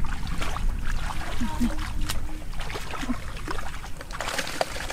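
Hands splashing and sloshing in shallow muddy water among grass and weeds, with irregular short splashes and crackles, while groping for fish. Brief bits of a voice.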